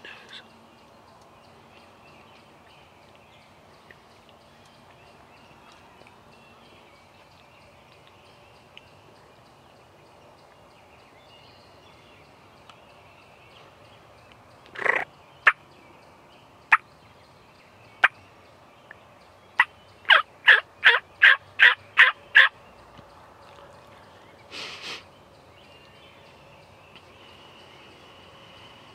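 Wild turkeys calling over a quiet woodland background. A gobble comes about 15 seconds in, followed by a few single sharp notes. Then a quick run of about nine loud, evenly spaced calls, nearly four a second, and a shorter gobble near 25 seconds.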